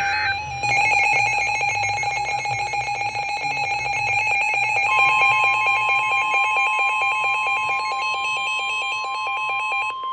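Emergency alert warning tones: a buzzy alarm tone pulsing rapidly, joined about halfway through by a second, steady, higher pure tone. The pulsing tone stops near the end while the steady tone holds on.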